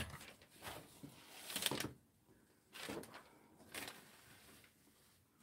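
A handful of short knocks and scrapes from cookware being handled and moved on a tabletop, including a frying pan and portable butane gas stove being lifted and slid aside; the loudest knock comes a little under two seconds in.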